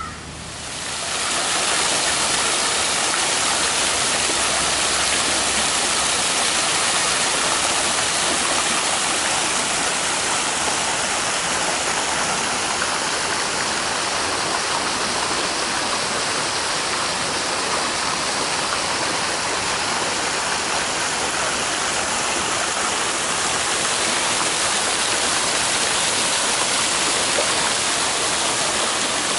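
Garden fountain spraying into a pool: a steady rush of falling, splashing water that swells up about a second in.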